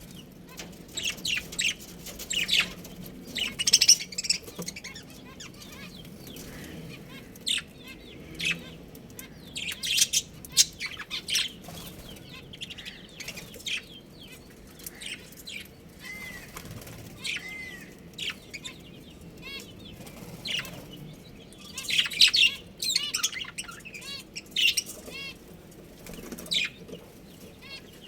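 Budgerigars chirping in short, busy bursts of high calls, with wings flapping.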